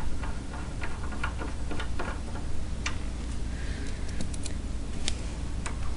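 Irregular light metallic clicks and taps from fitting the shorter jam nuts onto the rack and pinion's threaded shaft with hand tools.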